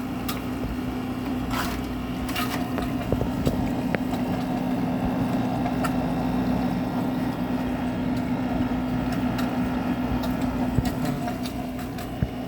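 GE 6,000 BTU wall air conditioner running: a steady hum over the whir of its fan, with scattered small clicks and crackles. Its coils are icing up, which the owner puts down to an overcharge.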